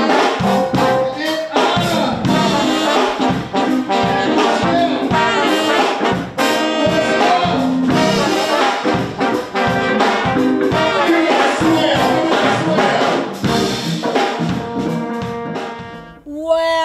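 Brass-led instrumental theme music with a steady beat, fading out near the end.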